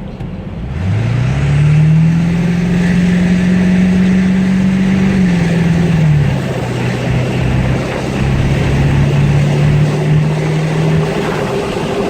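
Ford Power Stroke diesel pickup with a Wicked Wheel turbo compressor wheel accelerating out of a corner. The engine note climbs quickly about a second in and holds, then drops around five to six seconds in as the transmission upshifts, and runs on steadily at the lower pitch.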